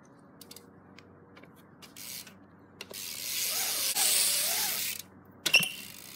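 A BMX bike's tyres rolling across a concrete skate bowl, the noise swelling loud for about two seconds after a few faint clicks, then a sharp clack about five and a half seconds in as the bike lands back on the deck.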